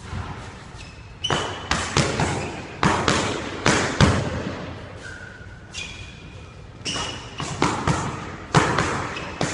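Boxing gloves landing in quick exchanges of punches while sparring, sharp smacks that echo off the bare walls of a squash court. Sneakers squeak briefly on the wooden floor between the exchanges.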